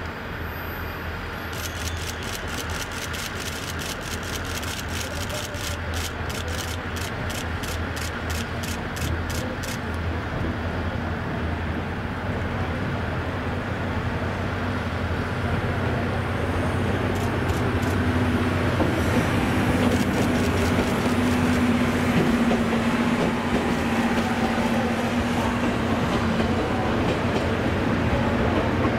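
Train of blue 12-series passenger coaches hauled by an ED75 electric locomotive, rolling slowly through a station with a steady rumble and hum. Fast, even ticking runs through the first third. The sound grows louder toward the end.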